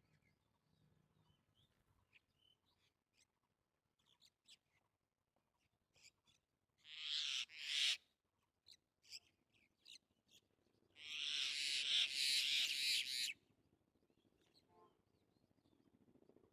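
Birds calling: short, scattered high chirps, with two much louder, harsh noisy calls, one about seven seconds in and a longer one of about two seconds near eleven seconds.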